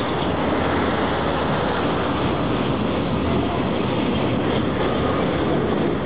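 Freight train of container wagons rolling past close by: a steady noise of steel wheels running on the rails.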